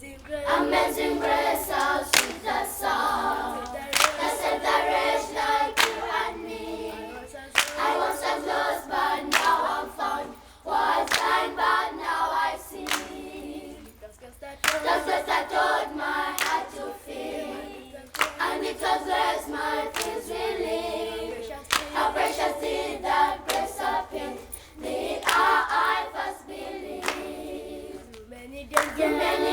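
Children's choir singing a cappella in several voices, in phrases that pause every few seconds, with hand claps marking the beat.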